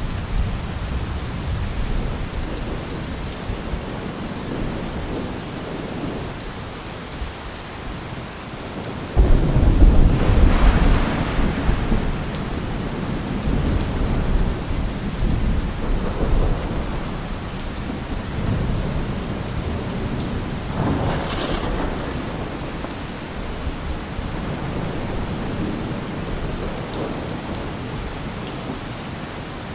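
Steady heavy rain with thunder: a sudden loud thunderclap about a third of the way in that rumbles on for a few seconds, and another, weaker roll of thunder about two-thirds of the way in.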